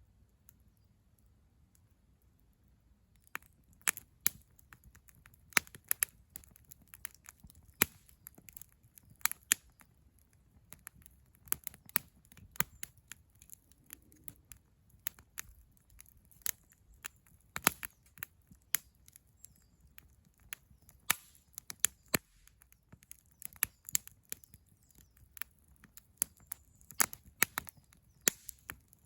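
Irregular sharp clicks and pops, starting about three seconds in after near silence and going on at an uneven pace, over a faint steady high hiss.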